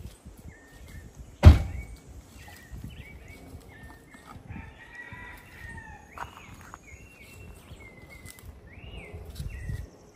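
Birds chirping outdoors, short chirps repeated throughout, with one longer call near the middle. A single loud thump comes about a second and a half in.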